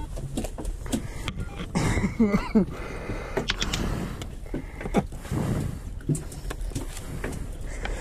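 Fishing boat's engine running with a steady low rumble, under irregular knocks and clicks from bait being cut and hooks baited on deck.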